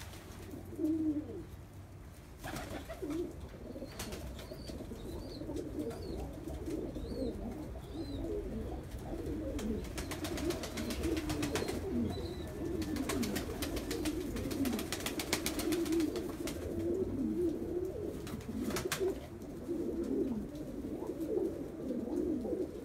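A flock of domestic pigeons cooing, many low overlapping coos without pause, with a few sharp clicks and some faint high chirps here and there.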